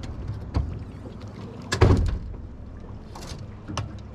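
Hollow knocks and thumps on an aluminum boat hull and deck as someone moves about the bow. The loudest comes about two seconds in, with a short swish a little after three seconds, over a low steady hum.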